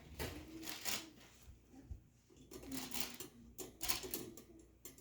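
Metal wire rails of a can rack clinking and rattling against the frame as a rail is worked onto its hooks: a handful of separate clicks and short rattles, the loudest about a second in and just before four seconds.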